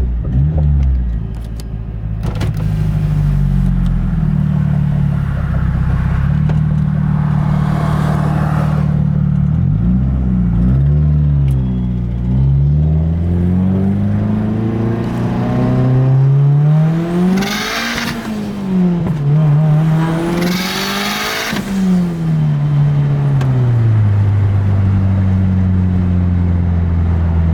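Mazdaspeed's turbocharged 2.3-litre four-cylinder under hard acceleration. The revs climb and drop back several times through the gear changes, with short bursts of hiss around the rev peaks.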